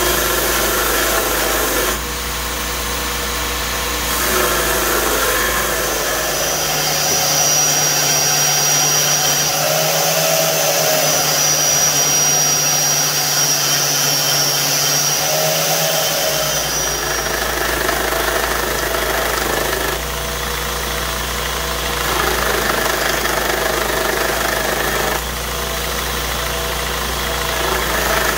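Belt grinder running with a leaf-spring steel cleaver blade being ground against the belt, in several short stretches that change abruptly. In the middle stretch the low hum gives way to a steady high whine from a smaller belt tool grinding the edge and throwing sparks.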